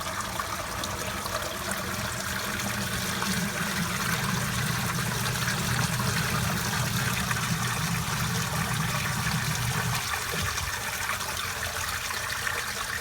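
Newly installed sump pump working in its pit: steady water trickling and flowing, with a low motor hum that stops about ten seconds in while the water keeps trickling.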